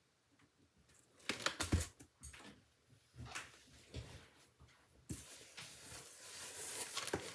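Cardboard shipping box being handled, with a few light knocks and scrapes, then plastic bubble wrap rustling and crinkling from about five seconds in, growing louder.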